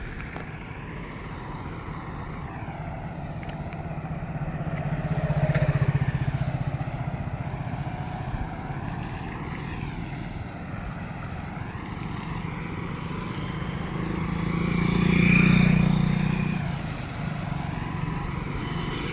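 Steady rush of floodwater over a road, with motor vehicles passing twice: the sound swells louder and fades away about five seconds in, and again about fifteen seconds in.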